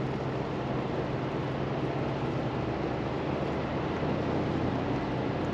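Pickup truck driving along a dirt road: steady engine hum with tyre and road noise.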